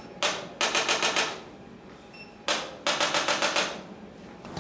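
Sharp, quick tapping from a chiropractic treatment, in two bursts: a single tap, then about six rapid taps in under a second.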